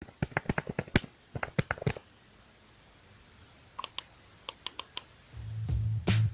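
Typing on a computer keyboard: a quick run of key clicks, then a pause and a few more scattered clicks. A low steady sound, the start of background music, comes in near the end.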